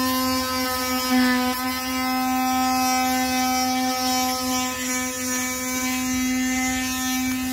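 A power tool's motor running steadily at a high, even pitch, a continuous hum with many overtones.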